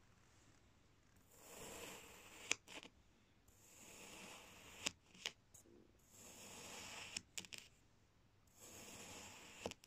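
Kitchen knife slicing down through pink kinetic sand, four slow cuts: each a soft gritty swish ending in a sharp tap as the blade reaches the table.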